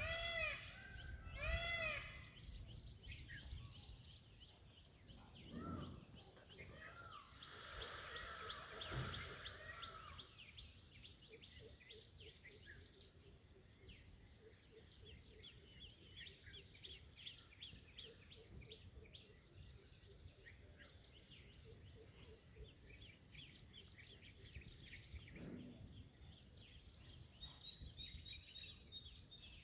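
Indian peafowl calling: a short series of arched, nasal honks near the start and another burst about eight seconds in. Between them are faint chirps of small birds and a steady high-pitched whine.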